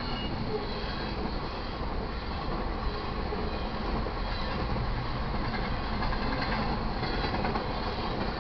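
Intermodal freight train's well cars, loaded with containers and highway trailers, rolling past: a steady noise of steel wheels on the rails.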